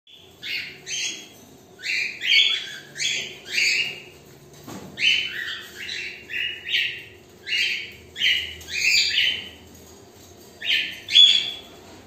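Cockatiels calling: a string of short chirping calls, about two a second and sometimes overlapping, with a pause of about a second near the end.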